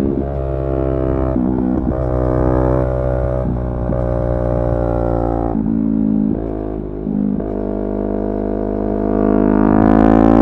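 Yamaha R3's parallel-twin engine and exhaust running under way, its pitch shifting with throttle and gear changes. It dips briefly a little past the middle, then climbs steadily as the bike accelerates near the end.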